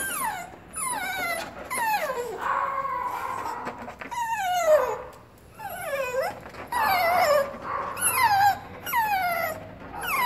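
Small dog whining over and over: a dozen or so high, falling whines about a second apart, one longer drawn-out one near the middle. She is begging, wanting to carry her puppy from the nest up onto the bed.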